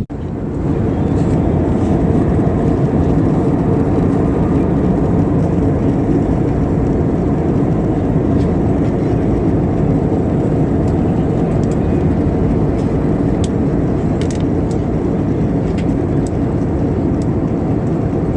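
Steady road and engine noise of a moving car.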